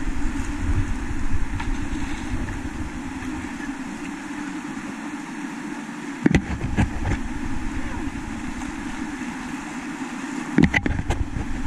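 Whitewater rapids rushing steadily around a kayak, with a low rumble that fades in the middle and returns near the end. A few sharp knocks about six seconds in and again near the end.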